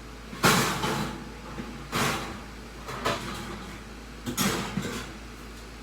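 Kitchen handling noises: four separate knocks and scrapes, each under a second, spaced about a second apart, like cupboards, drawers or pans being moved.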